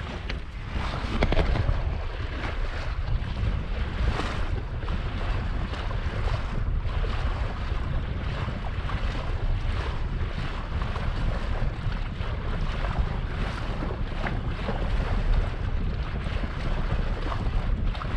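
Wind buffeting the microphone over water rushing and splashing along the bow of a sailboat under sail, a steady rumble with many short splashes.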